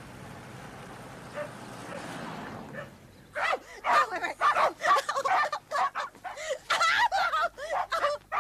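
A low steady hum for about three seconds, then a pack of dogs barking loudly in rapid, overlapping bursts.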